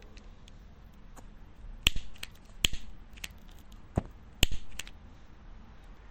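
A lighter being flicked: a run of sharp clicks, four of them louder, some followed by a brief hiss.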